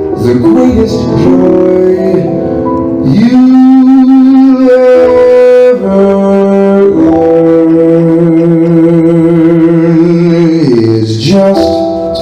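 Jazz recording playing loudly: a slow passage of long held notes with vibrato, carried by a saxophone-like lead line over the band.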